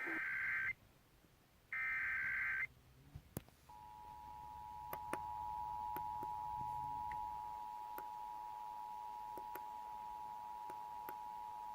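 Emergency Alert System tones received over the radio: two short bursts of the SAME digital header warble, about a second apart, then the EAS two-tone attention signal starting about 3.7 s in and holding steady. This signals the start of a relayed Required Monthly Test alert. Faint static clicks run underneath.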